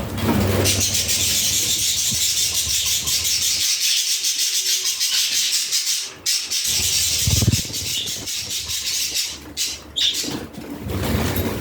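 Budgerigars chattering and warbling together, a dense stream of fast high chirps that breaks off briefly about six seconds in. A few short low thumps come in between, about a second into the chatter's second half and near the end.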